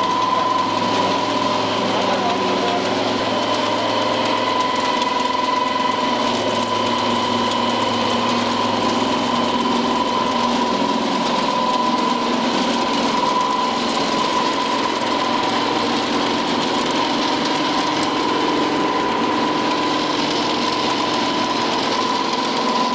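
Horizontal ring-die feed pellet mill running steadily while meal is fed into it: a constant machine hum with a steady high whine.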